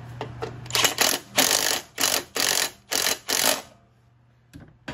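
Ratchet wrench clicking through about seven quick back-and-forth strokes as the bolt of a new idler pulley is tightened down, stopping about three and a half seconds in.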